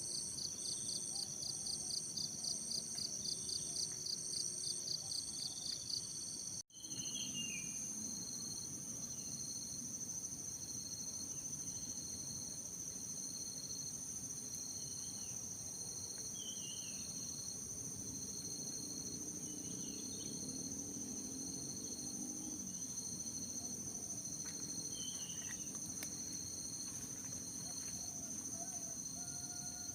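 Morning forest ambience: a chorus of insects drones in steady high tones, pulsing rapidly at first, with short scattered bird chirps over it. The sound drops out briefly about seven seconds in, and after that the insect drone runs steady.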